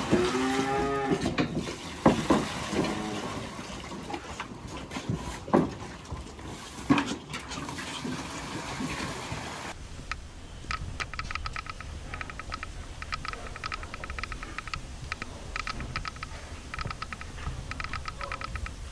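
Cattle mooing in a barn, with a long call at the start and scattered knocks. About halfway through this gives way to a rapid, irregular clicking rattle.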